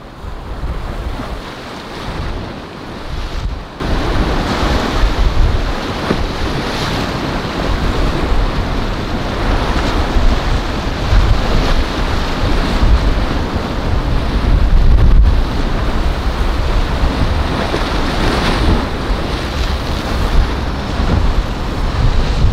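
Wind buffeting the microphone over surf and breaking waves. The noise grows much louder about four seconds in and then swells and falls again and again as waves break.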